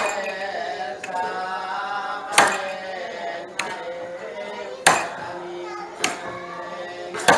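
Iban timang ritual chant, a man's voice chanting slowly, with a tall wooden ritual staff knocked on the tiled floor in time: a hard knock about every two and a half seconds, and a lighter one in between.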